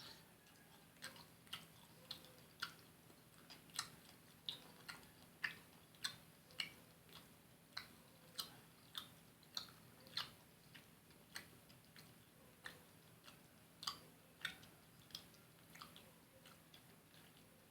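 Someone chewing fried fish close to the microphone: soft mouth clicks and smacks, about one or two a second at an uneven pace.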